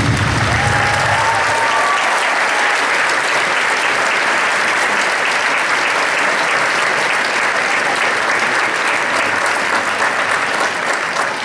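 Audience applauding loudly and steadily as the last of the music dies away in the first second or so, the clapping thinning slightly near the end.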